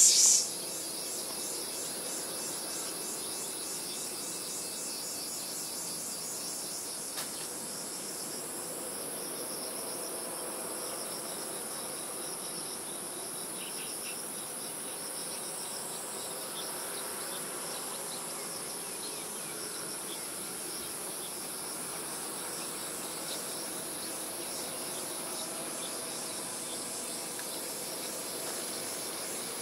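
Insects chirping in a steady, high-pitched chorus that goes on without a break.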